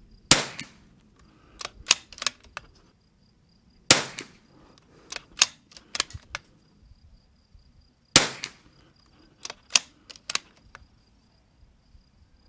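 Three .22 LR rifle shots (Lapua Center-X) about four seconds apart, each a sharp crack. Each is followed a second or two later by a few quick clicks, typical of the bolt being worked to chamber the next round.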